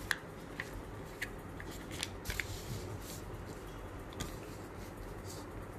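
A sheet of white paper being folded and creased by hand: soft rustles with a scattering of short, crisp crackles every second or so.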